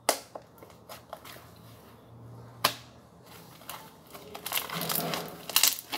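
Homemade cornstarch bubblegum-style slime being pressed and stretched by hand, making sharp clicks and pops: a few single clicks at first, then a dense run of clicking and crackling near the end as it is pulled apart.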